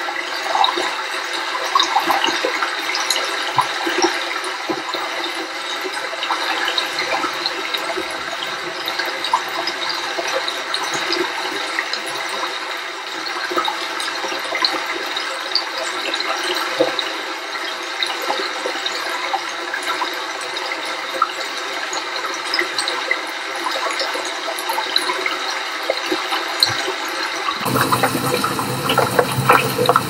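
Small cascade of a stream pouring over rocks: a steady rushing splash with many small droplet ticks. A couple of seconds before the end it switches abruptly to a deeper, fuller splashing of water.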